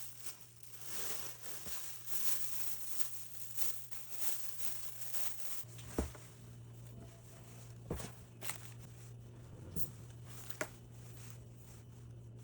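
Objects being handled while tidying: a soft rustle for about the first half, then a few sharp knocks and clicks as things are set down.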